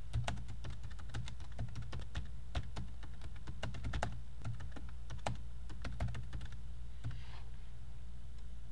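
Computer keyboard typing: a run of irregular key clicks that thins out and stops near the end, over a steady low hum.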